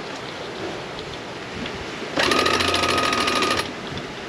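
Electric sheet winch running for about a second and a half, trimming in a sail: a steady motor whine with rapid ratchet clicking. Steady wind and water hiss runs underneath.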